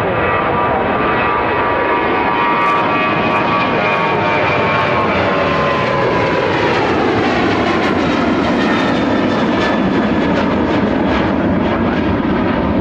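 Boeing 737-800's two CFM56-7B turbofan engines at takeoff thrust as the airliner lifts off and climbs out: a loud, steady jet rush with a whining tone that slowly falls in pitch about halfway through as the aircraft passes, turning deeper and crackling in the second half.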